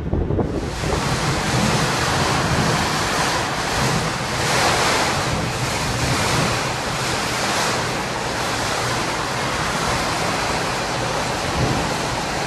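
Dust-storm wind blowing hard and steadily, a dense hiss with low rumbling buffeting on the microphone, setting in suddenly about half a second in.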